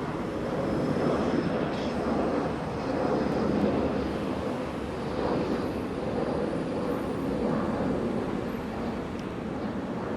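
Jet airliner engines running, a steady rumble with faint thin high whines above it.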